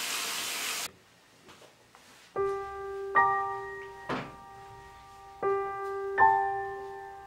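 Running water cuts off suddenly about a second in. After a short hush, a soft piano plays slow sustained chords, struck four times, with a brief noisy swish near the middle.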